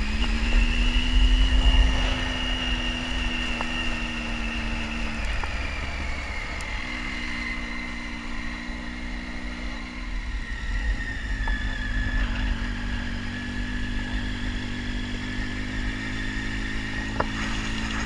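Triumph Tiger 800 XC's three-cylinder engine running under way at a fairly steady pitch, its note dropping out for a moment about five seconds in and coming back, with wind rumbling on the microphone.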